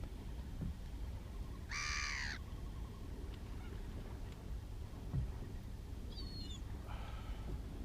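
A bird calling outdoors: one harsh call about two seconds in, short high chirps around six seconds, and a fainter call near the end, over a steady low rumble.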